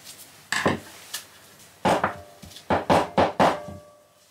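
Metal hand tools being picked up and set down on a wooden workbench: about seven sharp knocks and clinks, most of them in the second half, a few leaving a short metallic ring.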